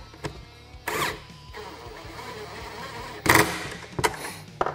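Cordless drill/driver running as it drives the bolts on a metal heater bracket, with a loud sharp clack a little past three seconds in and a few lighter clicks near the end.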